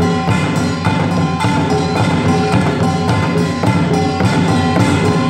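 Samulnori percussion quartet playing: kkwaenggwari small gongs, a jing large gong, a janggu hourglass drum and a buk barrel drum struck in a fast, dense rhythm. The gongs' ringing tones are held over the drumming.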